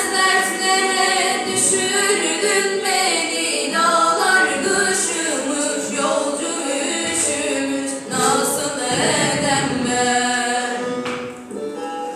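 Two women singing a Turkish folk song together in long, held melodic phrases; the voices drop away about 11 seconds in.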